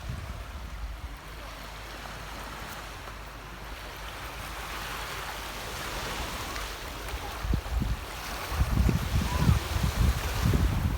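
Baltic Sea surf washing onto the beach, a steady hiss that swells as a wave breaks and runs up, about halfway through. In the last few seconds wind gusts buffet the microphone with low, uneven rumbles.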